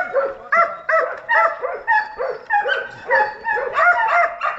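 Boar-hunting dog baying at wild boar in a pen: a rapid run of high yelping barks, about three a second, each rising and falling in pitch.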